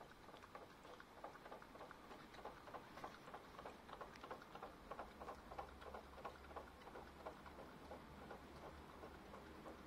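Dog lapping water from a plastic tray: a quick, even run of faint wet laps, about four a second.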